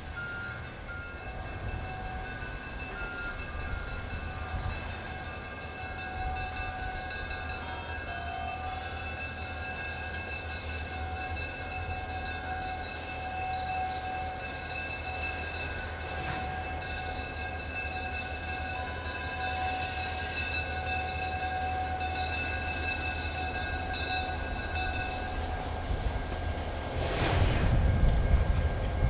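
Illinois Central diesel locomotive 3115 approaching a grade crossing slowly, its engine running low and steady with several steady high tones over it. Near the end the sound grows louder as the locomotive comes up to the crossing.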